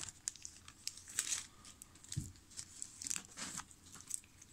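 Faint, scattered crinkles and soft clicks of a trading-card pack wrapper and cards being handled.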